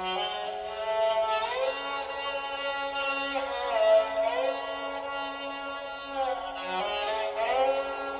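Dilruba bowed in a slow melody with slides between notes, over a steady drone. The bowed line starts suddenly and carries on throughout.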